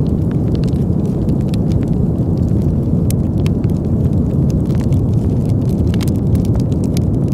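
Campfire crackling, with frequent small sharp pops and snaps, over a steady low rumble of wind.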